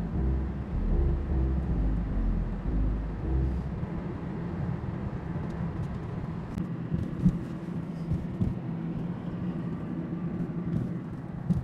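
Steady low rumble of road and engine noise heard inside the cabin of a moving car, with a couple of sharp knocks.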